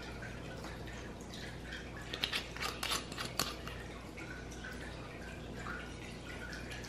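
A quick cluster of small clicks and taps about two to three and a half seconds in, over a steady low hum.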